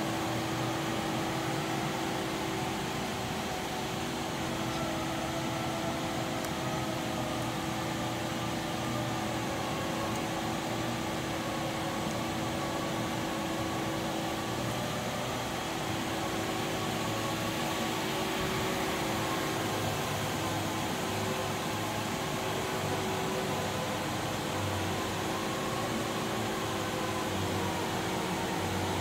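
Steady hum of machinery in a machine shop: fan-like running noise with a few steady tones over it, as from a powered-up CNC machine's cooling fans and pumps.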